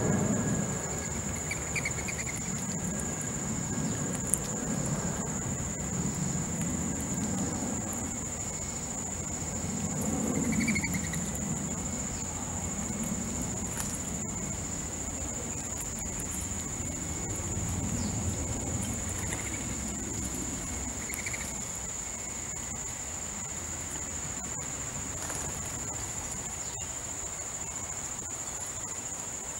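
Crickets chirring in a steady, unbroken high-pitched trill, over a low rumble that swells and fades twice and a few faint short chirps.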